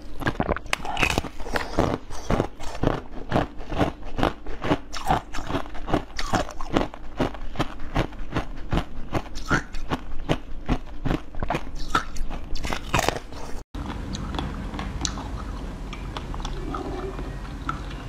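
Close-miked biting and chewing of frozen jelly: many sharp, wet crunches one after another. About 13.5 seconds in, the sound cuts out briefly and gives way to softer, steadier chewing of a frozen treat.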